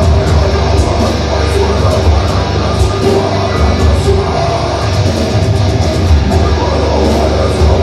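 Deathcore band playing live at full volume: distorted electric guitars, bass guitar and a pounding drum kit, with the singer's vocals over it, dense and unbroken.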